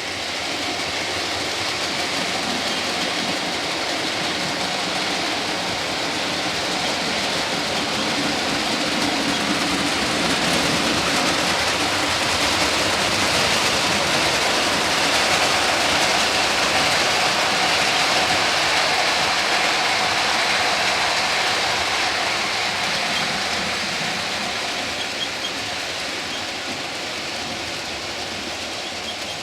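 Model train running along the layout's track, a steady rolling rattle of wheels on rail and motor that grows louder towards the middle and fades again near the end as it passes.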